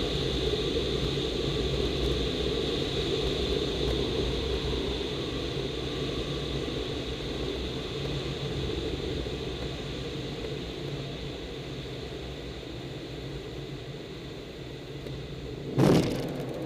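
Air rushing over an aerobatic glider's canopy, heard inside the cockpit, growing gradually quieter as the glider slows on its landing approach. Near the end a sudden loud rumble comes as the wheel meets the grass.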